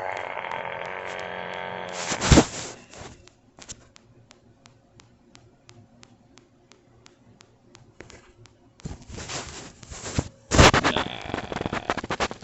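A man burping: a drawn-out burp about two seconds long, then a sharp click and a run of faint ticks about three a second. Another loud click and a second burp come near the end.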